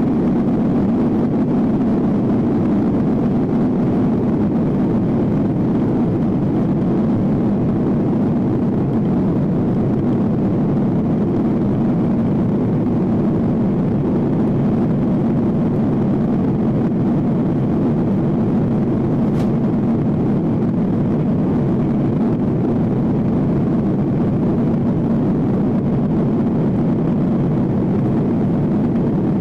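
Cabin noise of a Boeing 737-800 with its CFM56-7B turbofan engines at high power during takeoff and the initial climb: a loud, steady low rush of engine and airflow. A single faint click comes about two-thirds of the way through.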